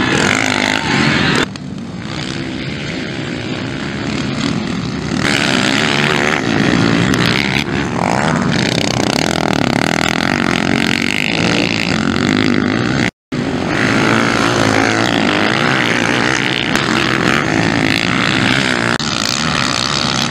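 Motocross dirt bike engines revving hard as the bikes race through the dirt-track corners, the pitch rising and falling with the throttle. The sound cuts out for an instant about two-thirds of the way through.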